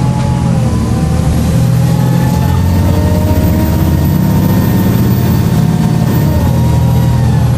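Volvo B7LA articulated bus engine running under power, with a thin, high-pitched turbocharger whistle rising, holding steady and falling away near the end over a steady low engine drone.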